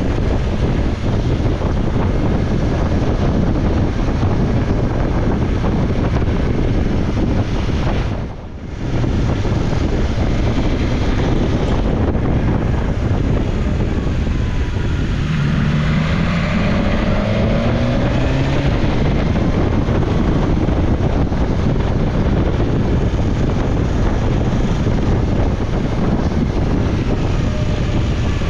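Heavy wind rush on the microphone of a moving motorcycle, over the BMW S1000XR's inline-four engine. The noise dips briefly about eight seconds in, and about halfway through a rising engine note comes through as the bike accelerates.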